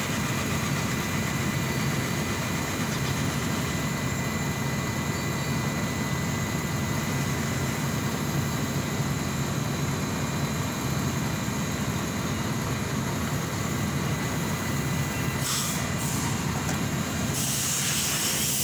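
A heavy engine running steadily at idle, a low drone with a faint high whine over it. A hiss comes in near the end.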